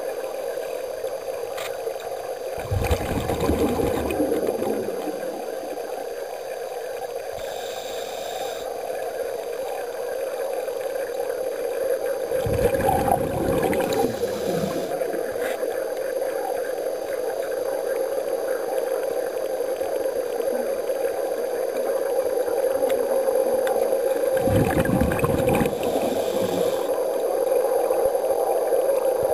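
Underwater recording with a steady hum, broken three times, about ten seconds apart, by a surge of scuba exhaust bubbles from a diver's regulator.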